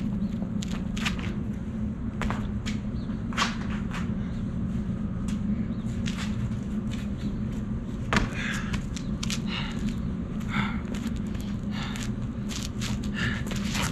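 Footsteps, scuffs and landings of a parkour runner on hard ground: a scattered string of short knocks over a steady low rumble.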